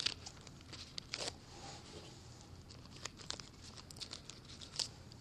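Faint rustling and crinkling with scattered light clicks and taps as gloved hands handle a glove and apple sticks.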